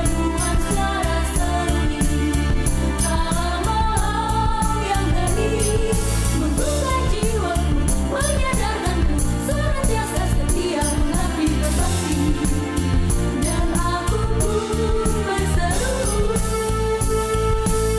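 Mixed choir singing over an accompaniment with a steady beat and bass, the voices moving in several parts and settling on a long held note near the end.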